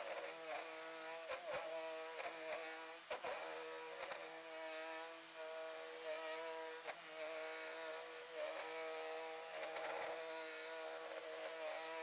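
Compact trim router running and cutting into a wooden slab, with a small battery-powered vacuum cleaner drawing the chips through a hose from the router base. A steady motor whine with scattered short clicks and knocks.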